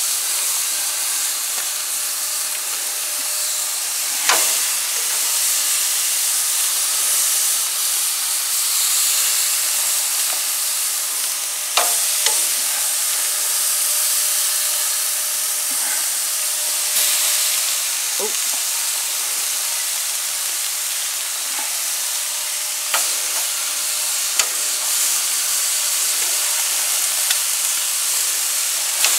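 Marinated lamb steaks and chops sizzling on a preheated gas grill's grates, a steady hiss, broken now and then by sharp clicks and knocks as more pieces are laid on with tongs.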